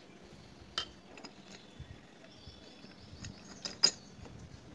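Steel clutch plates of a Bajaj CT100 motorcycle engine clicking and clinking as they are pressed by hand into the clutch basket: a single click about a second in, then a quick cluster of clicks near the end, the last one the loudest.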